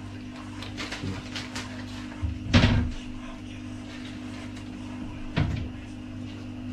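Kitchen wall-cupboard door being opened and shut: a sharp knock about two and a half seconds in and a smaller one near the end, over a steady low hum.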